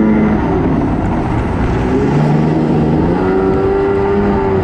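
Stand-up jet ski engine running at speed, close to the handlebars, over rushing wind and water. Its pitch drops about two seconds in and climbs again about a second later.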